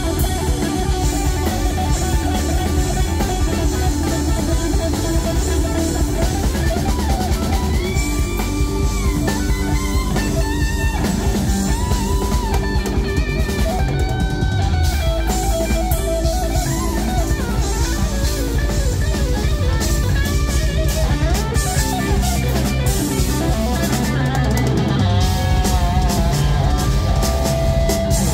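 Live rock band playing: an electric guitar plays a lead line of held, bent notes with vibrato over drums and bass guitar.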